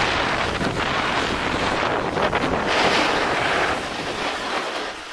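Wind rushing over the camera microphone on a downhill ski run, mixed with the hiss of skis on the snow; it swells about three seconds in, then dies down near the end as the run slows to a stop.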